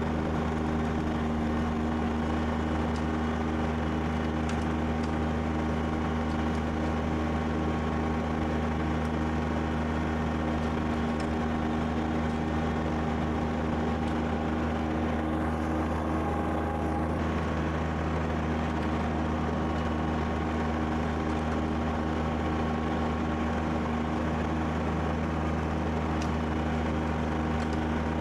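Kubota BX2680 tractor's three-cylinder diesel engine running steadily under load, driving a rear-mounted snowblower that is throwing light, fluffy snow.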